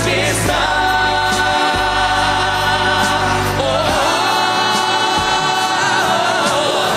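Gospel-style choir singing long held chords over a band. The low bass drops out about four seconds in, leaving the voices with less underneath.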